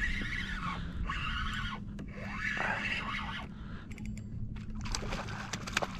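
Spinning reel being cranked in short bursts while a hooked fish is fought, a scratchy whirring with a few sharp clicks near the end.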